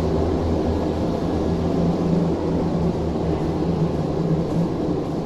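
Steady low mechanical hum: a constant low droning tone over an even rumble.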